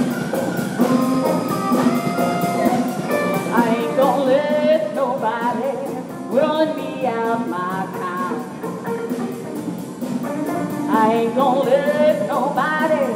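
Live blues band playing: drum kit, electric bass, electric guitar, keyboard and a hand drum. A woman's voice sings over it from about four seconds in.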